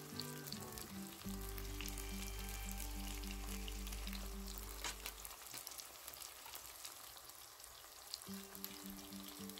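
Chopped onions, tomatoes and ginger-garlic paste sizzling in oil in a wok. Soft background music with a steady beat plays over it, dropping out for a few seconds about halfway through.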